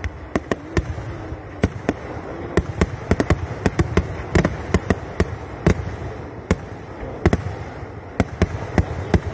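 Vedikkettu fireworks going off: a fast, irregular string of sharp cracks and bangs over a continuous low rumble.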